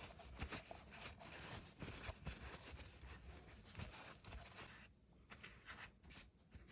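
Faint, uneven scratching and scraping of hand-tool work on a bronze censer, with small clicks and a short pause about five seconds in.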